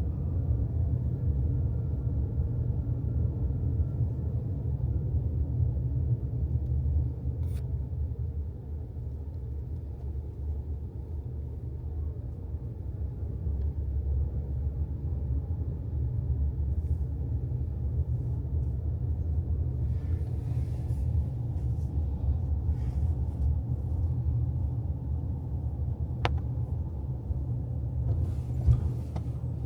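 Steady low rumble of a car on the move, with a few faint clicks.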